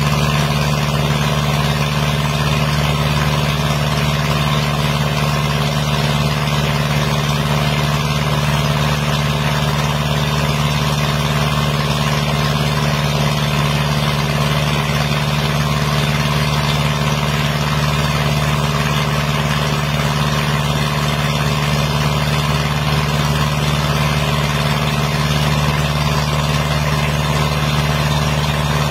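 A 4-inch sand dredging pump set running with a steady, unchanging drone, while sand-and-water slurry gushes from the discharge pipe and splashes into a pool.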